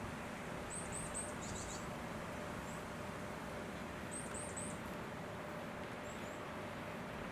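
Small bird giving short high chirps in quick runs of three, twice, with a couple of fainter chirps near the end, over a steady background hiss.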